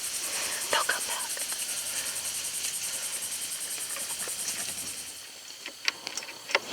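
Night insects chirping in a steady, fast-pulsing high chorus, which stops abruptly about five seconds in. Scattered short clicks and rustles sound throughout.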